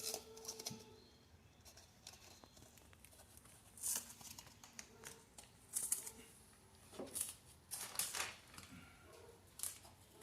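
Carpet pieces being handled and pressed into place on a car floor: a few brief rustles and scrapes, the loudest about six and eight seconds in.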